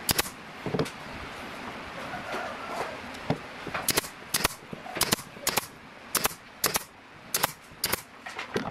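Pneumatic nailer firing nails into a pine board: a series of sharp shots, a quick pair at the start, then a steady run of about one every half second through the second half.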